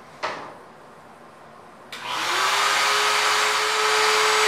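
A sharp knock, then about two seconds in a shop vacuum switches on at full power with its enclosure lid cracked open: a whine that rises briefly as the motor spins up, then a loud steady rush of air.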